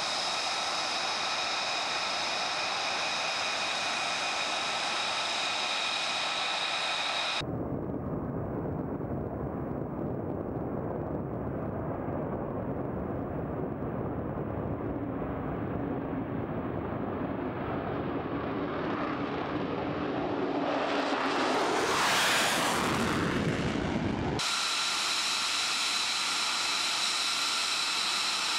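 F-35B's single F135 jet engine whining steadily at low power, with several high steady tones. A sudden change to a low jet roar follows, building and brightening as the aircraft comes down the runway and passes, loudest near the end of the roar. It then cuts back to the high-pitched idle whine.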